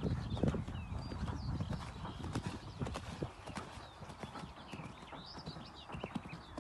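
Hoofbeats of a grey horse cantering on a sand arena surface, a run of dull thuds. The heaviest thuds come about half a second in as it lands from a jump, and the hoofbeats grow quieter as it moves away.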